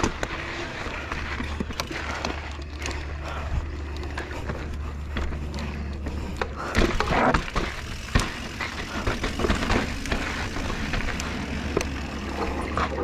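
Mountain bike rolling over a rough, rocky trail: tyres crunching on dirt and stones, with rattles and sharp knocks as the wheels hit rocks. The heaviest knocks come about seven and eight seconds in, over a steady low rumble.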